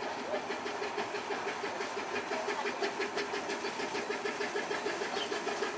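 Diesel engine of a 15-inch gauge miniature railway locomotive running steadily as it hauls its coaches at low speed, a steady hum with a rapid regular beat.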